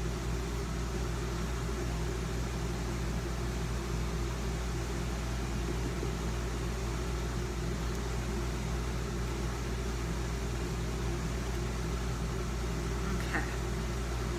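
Steady low mechanical hum, even throughout, with no distinct knocks or other events standing out.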